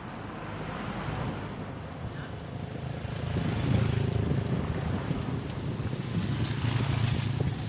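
Wind buffeting the microphone of a camera on a moving bicycle, growing louder about three seconds in, with a motorcycle engine passing close by around the middle.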